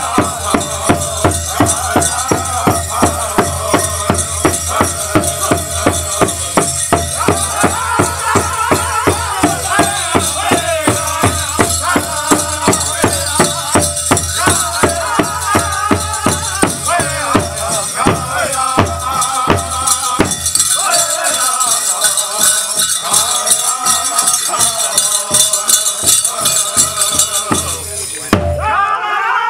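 Powwow drum and singers: a steady drumbeat of about two to three beats a second under high wavering voices, with the jingling of the dancers' bells over it. A short break comes near the end.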